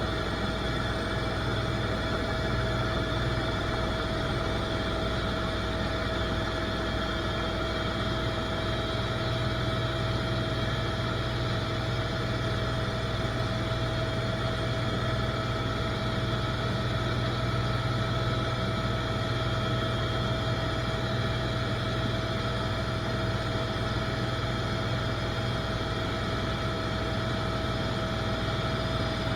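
Helicopter in flight, its engine and rotor running steadily, with a constant low drone and a steady high whine over it.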